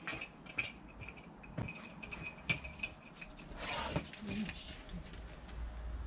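A string of light glassy clinks, each ringing briefly at the same high pitch, with a rustle and a soft knock about four seconds in.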